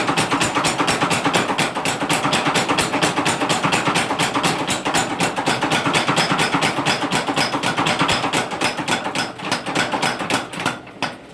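Forging power hammer pounding hot steel in a rapid, even run of about seven blows a second, stopping near the end.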